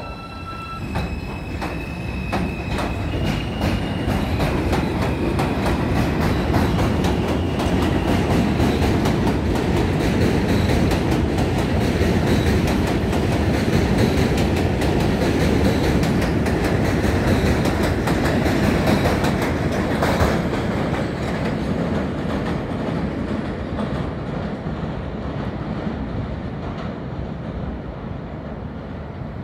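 R160 subway train pulling out: its motor whine steps up in pitch through several short tones over the first few seconds. Then the wheels clatter quickly over the rail joints under a heavy rumble, loudest in the middle and fading away over the last several seconds.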